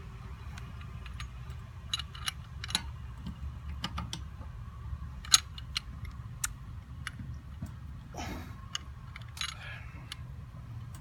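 Metal tools and fittings clinking and clicking at irregular intervals during hands-on work on a backflow valve, with one sharper knock about five seconds in and a couple of short scrapes, over a steady low rumble.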